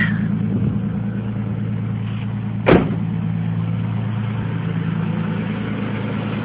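Nissan RB25DET turbocharged straight-six idling steadily from a cold start at just over 1,000 rpm, freshly put back together. A car door shuts once, loudly, a little under three seconds in.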